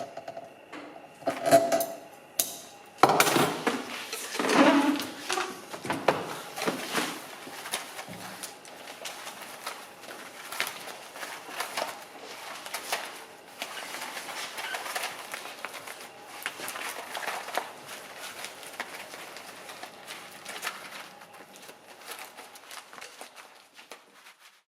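Light clattering and tapping of small hard objects being handled, with a cluster of louder knocks in the first few seconds.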